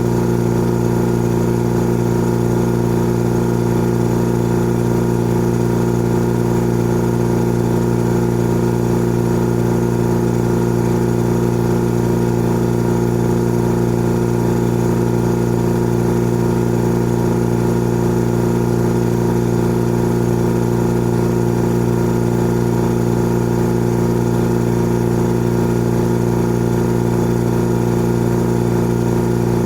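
Old air compressor running steadily, a constant hum with several steady tones that stays unchanged throughout.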